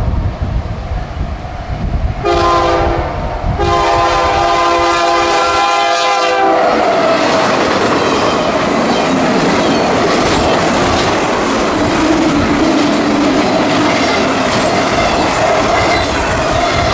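Freight locomotive's multi-note air horn sounding two blasts about two seconds in, the second one longer. After the horn stops, the container train's cars run past with a steady clatter of wheels on the rails.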